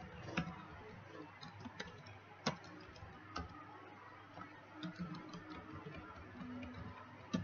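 Computer keyboard keystrokes typing at an uneven pace: scattered light clicks, the sharpest about two and a half seconds in, over a faint low hum.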